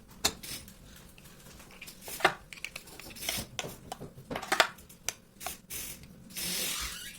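Kitchen handling sounds: scattered clicks and knocks with some scraping, and a short hissing rush near the end.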